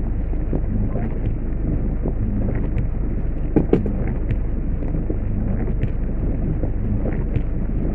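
Heavy rain on a car, heard from inside the cabin: a steady low rumble with scattered drops ticking on the glass and body, and a couple of louder knocks about halfway through.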